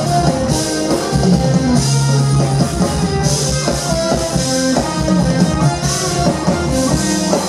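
Jazz-fusion band playing live: guitar over drum kit and sustained bass notes in a dense, continuous groove.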